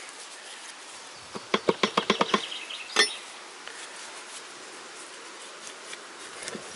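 Metal clinks and knocks from a Toyota three-cylinder engine's crankshaft and connecting rods being rocked and lifted in the bare block: a quick run of about eight clicks, then one louder knock. The crankshaft is still held fairly tight by its main bearing caps.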